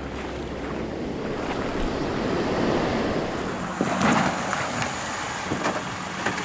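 Sea waves washing, with wind rushing over the microphone as a steady noise; it swells louder about four seconds in, with a few sharp knocks.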